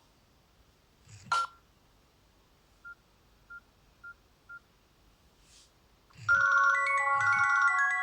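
Nokia N70 mobile phone ringtones: a short gap with a click and four short, evenly pitched high beeps, then about six seconds in a new polyphonic ringtone starts, a synthesized melody of bell-like notes over a low beat.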